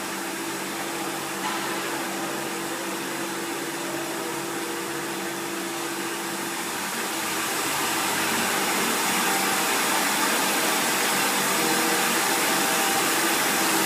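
Milkotek-Hommak yogurt cup filling machine running: a steady mechanical hum with a constant hiss, growing louder about halfway through.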